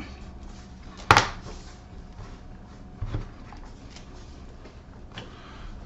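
Laptop's plastic bottom case being pressed back onto the chassis: one sharp click about a second in as a clip snaps home, then a softer knock and a faint tap of handling.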